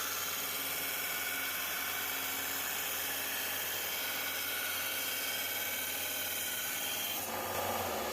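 An electric power tool running steadily at work, with a steady whine over a wide noise; its sound changes about seven seconds in.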